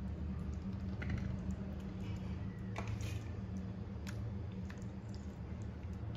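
Raw mutton pieces being placed by hand onto sliced onions in a kadai: scattered soft clicks and taps of meat and bone against the pan, over a steady low hum.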